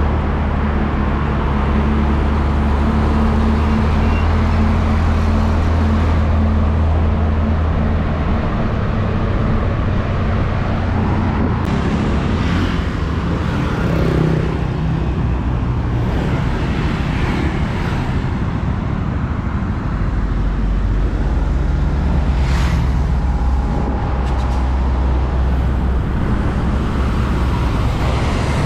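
Road traffic passing close by: diesel container trucks and cars going past, with a steady low engine drone and tyre noise. The drone is strongest in the first third and again from about two-thirds of the way in, with brief swells in between as vehicles pass.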